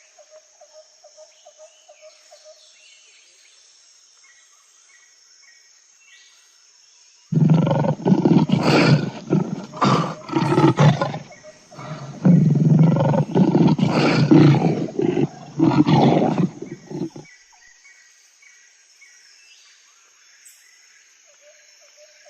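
Big cat roaring: a run of loud, deep roars that starts about seven seconds in and lasts about ten seconds. Faint insects and bird chirps can be heard before and after the roars.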